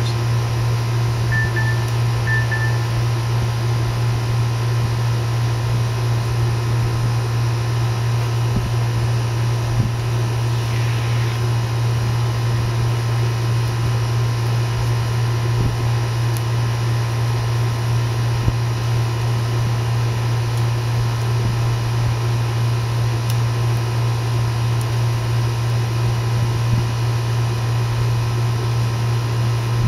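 Steady low mechanical hum, like a fan or air-conditioning unit running, with a few faint light clicks.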